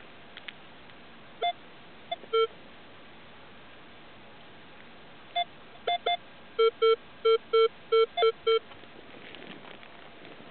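Minelab X-Terra 705 metal detector giving target tones as its coil sweeps over the ground. It gives short single beeps at two pitches, then a quick run of about seven lower beeps about two-thirds of the way through as the coil passes back and forth over a target.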